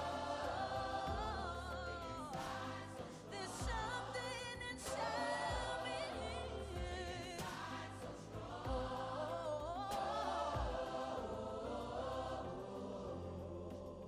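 Background music: choir-style gospel singing over a bass line and a steady beat.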